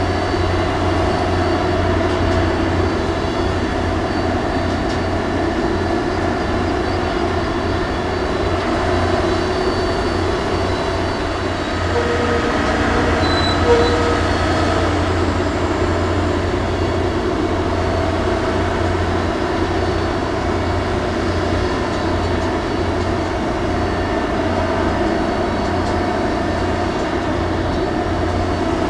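Ship-mounted grab crane's diesel engine running steadily as the clamshell grab is worked through an unloading cycle, with a strong low hum. A brief sharp sound stands out about halfway through, as black exhaust smoke shows the engine under load.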